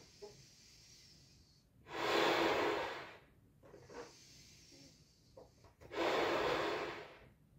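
A person blowing up a Belbal latex balloon by mouth: two long breaths rush into the balloon, each about a second and a half, with quieter intakes of breath between them.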